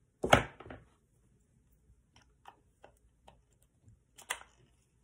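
Plastic clicks and handling from a GoPro Hero 8's battery door and battery being swapped by hand: a sharp click just after the start, a few light ticks, and another sharp click about four seconds in.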